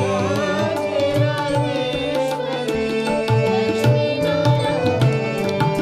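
Instrumental interlude of a Hindustani devotional bhajan in raag Kedar: harmonium holding steady notes over tabla in the eight-beat keherva taal. The singer's last held note trails off in the first second.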